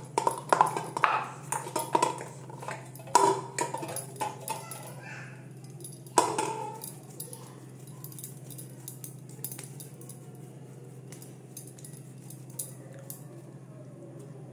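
Hands kneading and pressing dough in a stainless-steel bowl, the bowl knocking and clattering against the counter with brief metallic ringing over the first six or seven seconds, the sharpest knock about six seconds in. After that only a low steady hum remains.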